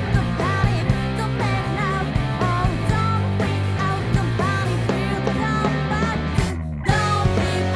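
A rock band playing: electric guitar, electric bass and drums, with a sung melody line over them. Near the end the band cuts out for a split second, leaving only a low sustain, then comes straight back in.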